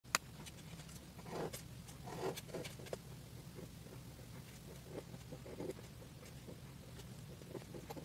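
Pen nib scratching and tapping on paper in short, irregular strokes while a line drawing is inked, with a sharp click right at the start. A low steady hum runs underneath.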